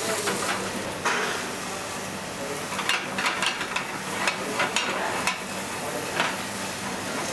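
Metal utensils stirring and scraping in metal saucepans, with scattered clinks, over the sizzle of food cooking in pans on gas burners. A steady low hum runs underneath.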